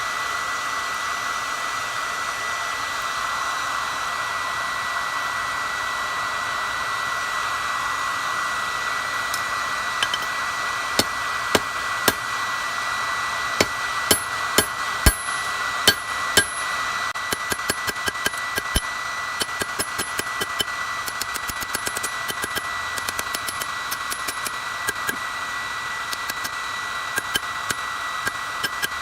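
A forge blower runs steadily with a thin whine. From about ten seconds in, a hammer strikes hot steel on an anvil: first single blows about a second apart, then a quick run of lighter taps until near the end.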